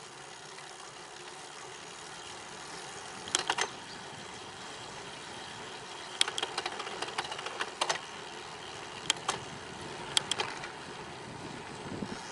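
Bicycle riding along a paved path: a steady rush of wind and tyre noise, broken by sharp clicks and short rattles from the bike a few times, with a longer run of rattling in the middle.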